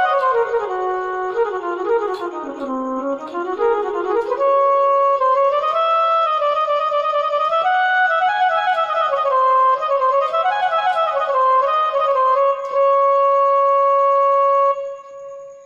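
Casio CTK-2550 / CTK-2500 keyboard playing a flute-like Indian-style tone: a single melody line with notes that slide into one another, ending on a long held note that fades out near the end.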